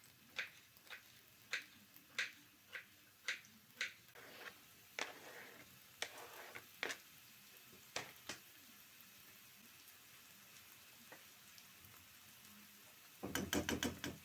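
Irregular light clicks and taps, roughly one or two a second, over a faint steady hiss, with a quick close-set run of clicks near the end.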